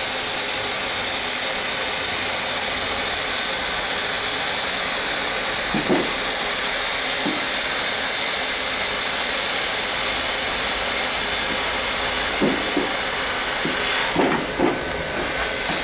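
Hot-air plastic welding machine blowing a steady hiss, with a few soft knocks around the middle and a short cluster near the end.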